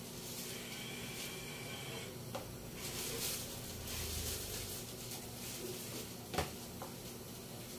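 Faint rustling and soft knocks of chopped vegetables being pushed by hand from a white tray into a cooking pot, with one sharp tap near the end.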